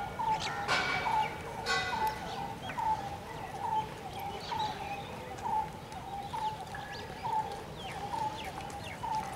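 A bird repeating one short, hooked call over and over at a steady pace, a little faster than once a second. Other birds chirp higher over it in the first couple of seconds.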